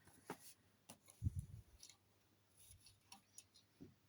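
Faint scattered clicks and light taps of small plastic Lego pieces being handled and set down, with one soft low thump about a second in.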